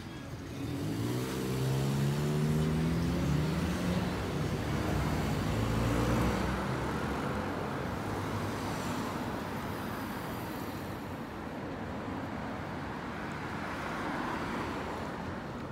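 Street traffic: a car engine is loudest for the first few seconds, its note falling slightly, then fades into a steady hum of passing cars and tyre noise.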